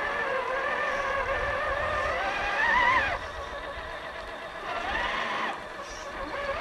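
Electric motor and gear whine of a scale RC off-road truck driving through muddy water. The pitch wavers and climbs with the throttle, then cuts off about three seconds in; a shorter rise and fall follows near five seconds.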